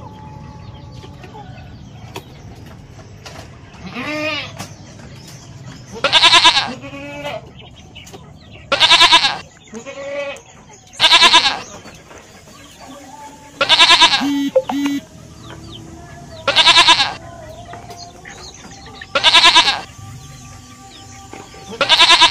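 Goats bleating loudly: a quieter bleat about four seconds in, then seven long, quavering bleats, one every two to three seconds.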